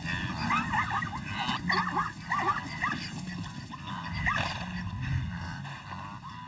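Plains zebras calling: a rapid run of short, yelping, dog-like barks.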